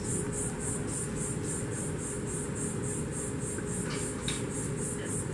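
An insect chirping in a steady high-pitched pulse about three times a second, over a steady low rumble and a faint hum. A couple of faint clicks come about four seconds in.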